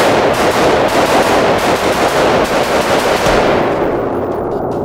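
A stock AR-15 with a mil-spec trigger firing fifteen rounds of 5.56 in quick strings, about four seconds in all. The shots come fast and crack and echo off the walls of an indoor range, then the echo dies away near the end.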